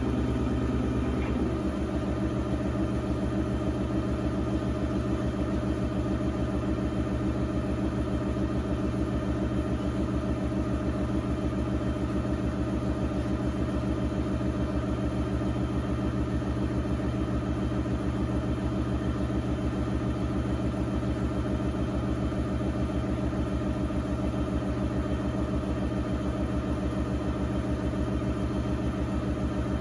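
Electric pottery wheel's motor running at a steady speed with a constant hum and a fast, even pulse.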